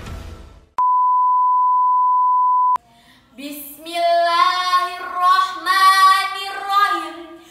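Intro music fading out, then a steady high-pitched beep for about two seconds that starts and stops abruptly. A young woman's voice then sings in long, wavering held notes.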